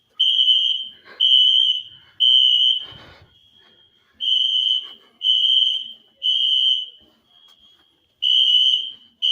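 Wheelock fire alarm horns sounding the temporal-3 evacuation pattern: three loud, high-pitched half-second blasts, a pause, then the next three, repeating. This is a false alarm, which the uploader puts down to smoke from burnt food.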